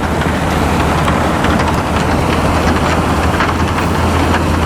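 Railway snow blower train running: a steady, loud low engine hum under a dense, even rushing noise.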